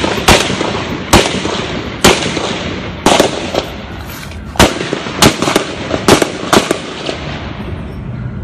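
Gunfire in a shootout: about a dozen sharp shots, each ringing out with a short echo. They come about one a second at first, then faster and in pairs, and stop shortly before the end.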